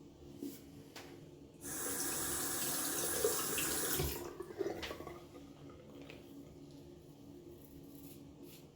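Sink tap turned on and running for about two and a half seconds, then shut off, followed by a few soft splashes and clicks.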